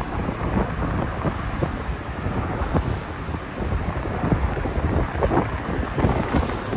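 Wind buffeting a phone's microphone while riding a bicycle: a steady low rumble with irregular gusty flutters.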